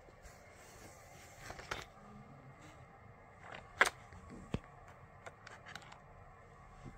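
A few short plastic clicks and taps as toy cars are handled and set into a plastic race track's starting gate, the sharpest about four seconds in, over a faint steady hiss.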